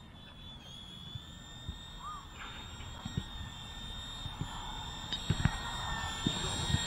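Eachine E129 micro electric RC helicopter in flight, its motor and rotor giving a steady high-pitched whine that grows louder as it comes closer. Wind rumbles on the microphone underneath.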